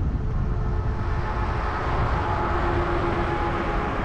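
Car driving on a highway: steady low road rumble and wind noise, with a faint steady whine that comes in early and grows stronger about halfway through.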